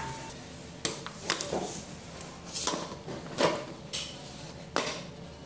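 Sharp metallic clicks and knocks, about seven spread unevenly, as the spin bike's seat and its fittings are handled and fitted onto the seat post.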